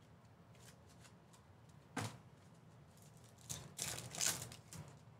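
Trading-card pack opened by hand: a sharp tap about two seconds in, then a second or so of crinkling and rustling near the end as the plastic wrapper is torn and peeled off the cards.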